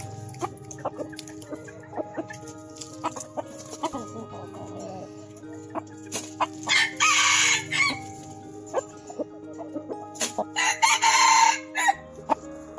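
Rooster crowing twice, about six and ten seconds in, each crow about a second and a half long, with short clucks in between.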